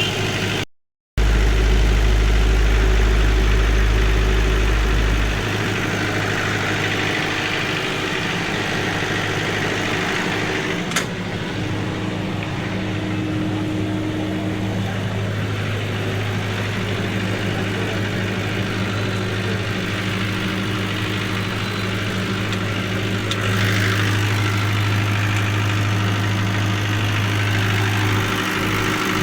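Isuzu C240 four-cylinder diesel engine running steadily at idle, with one sharp click near the middle.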